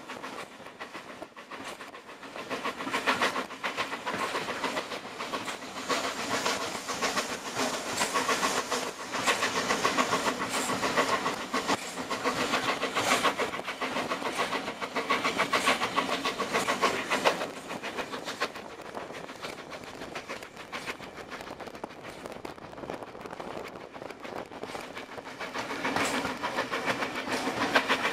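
Heritage railway carriage running along the track, heard from on board: a steady rumble with wheels clicking over the rail joints. It grows louder a few seconds in, eases off in the middle and picks up again near the end.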